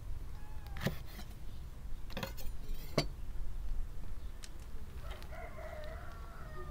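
A few sharp knocks in the first three seconds, then a rooster crows once, one long call starting about five seconds in.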